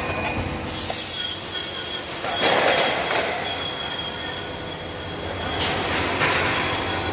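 Roll forming machine running, steel strip squealing and scraping through the forming rollers, over a steady high whine. Louder metallic surges come about a second in, midway and near the end.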